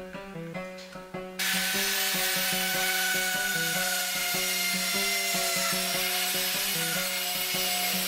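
Loud steady rasping noise that starts about a second and a half in and carries on to the end, over background music with a stepping melody.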